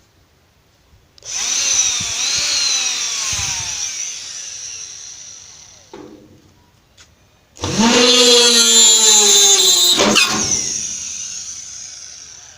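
A homemade drill's small electric motor is run twice. Each time it starts abruptly with a high whine, then winds down with its pitch falling as it fades.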